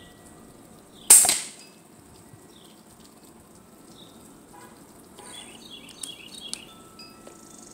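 Hatsan Jet 2 PCP air rifle firing one shot about a second in: a sharp crack that fades within half a second. A few light clicks come several seconds later.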